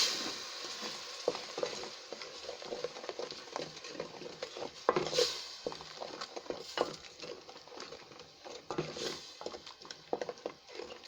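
A spoon stirring and scraping a tomato mixture in a metal cooking pot, with irregular clicks against the pot, over a light sizzle that dies down in the first couple of seconds as the blended tomatoes go into the hot fried paste.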